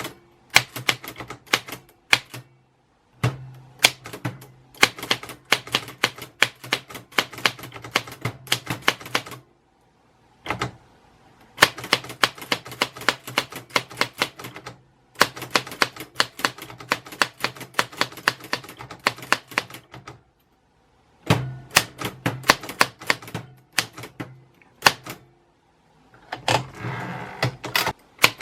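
Typewriter keys striking in quick runs of typing, a few seconds at a time, broken by short pauses of about a second.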